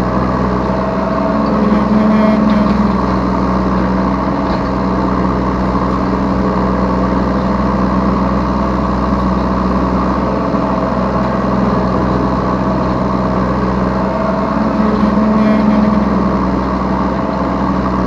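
Yanmar B3 Sigma mini excavator's diesel engine running steadily, heard from the operator's seat, swelling briefly twice: about two seconds in and again near the end.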